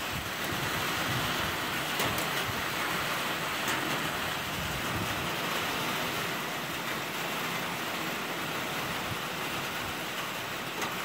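Steady pouring rain, with a few sharp ticks standing out from it.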